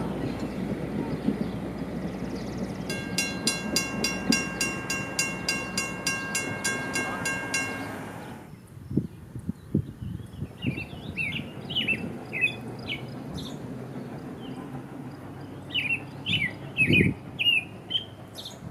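A passing train's rumble fades away while a bell rings rapidly, about four strokes a second, then stops abruptly. Birds chirp in the quiet that follows, with a few dull thumps.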